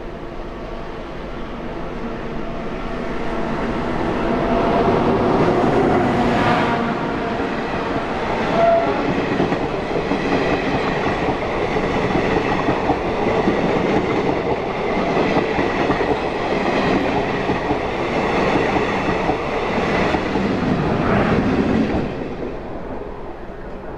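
Train running on rails: wheel-and-track rumble and clatter that builds over the first few seconds, holds steady, and drops away a little before the end.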